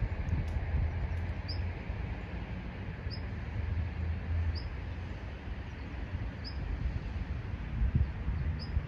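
Wind rumbling on the microphone, with a short high chirp about every second and a half from a small bird calling, and a low bump near the end.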